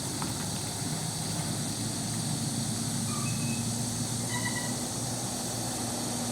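A vehicle engine running steadily over a constant hiss, with a few faint short high tones about halfway through.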